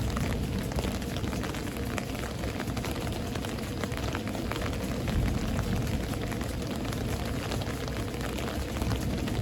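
Thunderstorm rain falling steadily, a dense hiss of many small drop impacts over a deep, constant low rumble.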